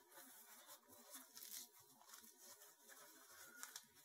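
Faint rustling and dabbing of a paper towel pressed onto raw, thawing chicken wings, blotting off moisture and ice crystals. A few soft brushing strokes, the clearest about a second and a half in and again near the end.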